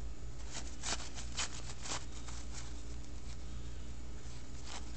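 Thin paper cocktail-napkin layers rustling and crinkling as they are pulled apart, in short scattered crackles, over a steady low hum.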